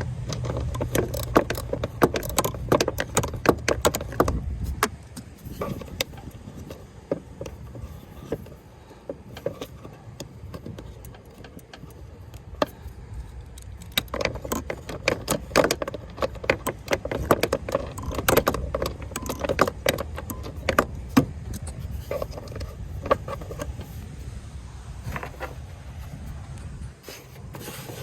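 Metal tools and mower-deck parts clinking and rattling as they are handled, in two busy spells of quick clicks and knocks, over a low steady hum in the first few seconds.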